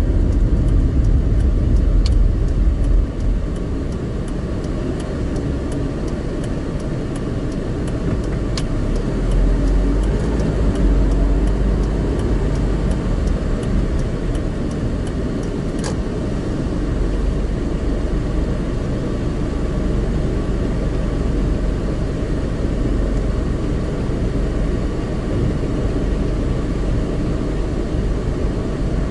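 A car driving along a road, heard from inside the cabin: a steady rumble of tyre and engine noise, with a few faint clicks.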